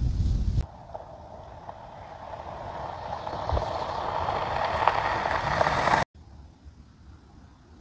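Ford Bronco driving on a sandy dirt road, its tyre and road noise with small crackles growing steadily louder as it approaches, then cutting off suddenly about six seconds in. Wind rumbles on the microphone for the first half second.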